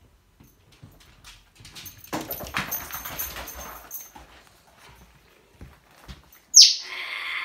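African grey parrot growling roughly for about two seconds, then near the end letting out a loud screech that starts high, drops sharply in pitch and holds. This is the parrot's alarm reaction to the dog.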